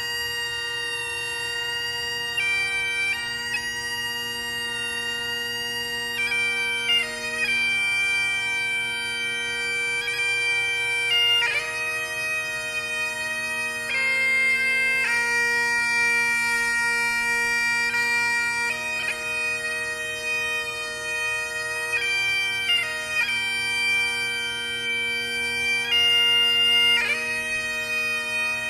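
Bagpipes playing a slow tune, long held melody notes over steady drones.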